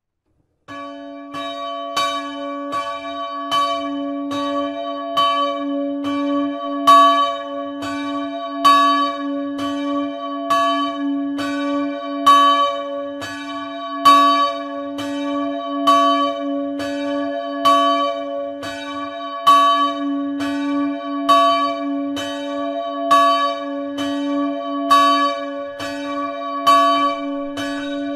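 Small bronze church bell tuned to d'', 210 kg and 71 cm across, cast by Grassmayr of Innsbruck in 1957, swinging and ringing on its own. It starts just under a second in, then the clapper strikes about once a second with every other stroke louder, and each stroke rings on into the next.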